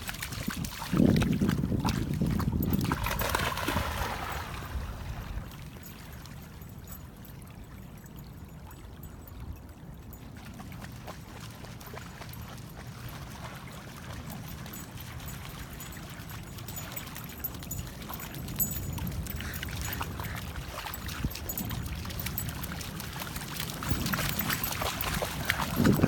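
Small waves lapping and water splashing, louder for the first few seconds and again near the end.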